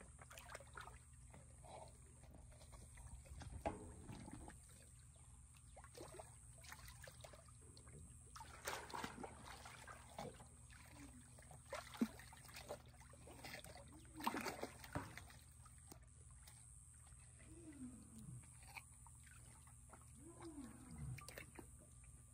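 Water sloshing and splashing in a stock tank as a black big cat wades and bites at watermelon, in scattered bursts. Near the end the cat gives two short low calls that fall in pitch.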